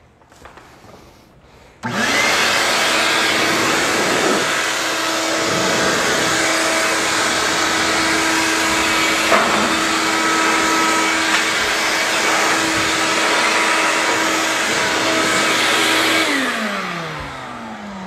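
The detachable blower of a RIDGID WD1685BR wet/dry vac, a 6.5-peak-HP motor head, starts suddenly about two seconds in and runs at full speed with a steady whine over a strong rush of air, blowing sawdust. Near the end it is switched off and spins down, its whine falling in pitch.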